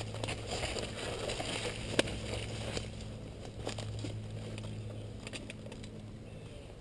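Crackling and rustling of movement through dry woodland brush, with a sharp crack about two seconds in and a few lighter clicks later. A steady low hum runs underneath.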